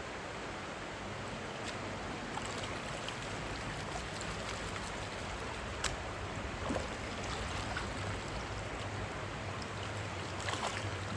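River water running steadily, with scattered light clicks and knocks over it: a sharper one about six seconds in and a few together near the end.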